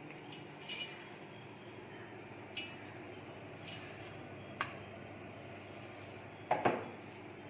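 Light clinks of a small glass bowl and utensils against a large stainless steel plate, four spaced a second or two apart, then a louder double clatter of utensils near the end.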